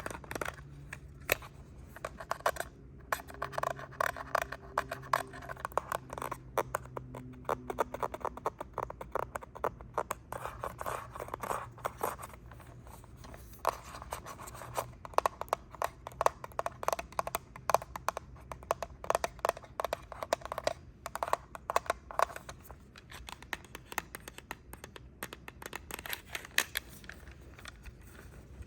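Rapid close-up tapping and scratching with fingers on a handheld device, a remote control or phone camera. Dense runs of quick clicks and scratches come with short lulls between them.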